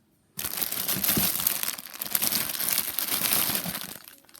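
Packaging crinkling loudly as it is handled and pulled apart to unwrap the next item from the box. It starts suddenly and dies down shortly before the end.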